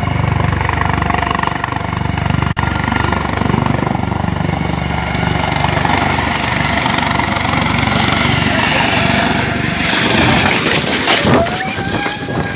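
Low-flying military helicopter running loud and steady, the beat of its rotor and the whine of its turbine continuous. About ten seconds in, the rotor noise falls away under wind rushing over the microphone as the phone is jostled, and people's voices shout.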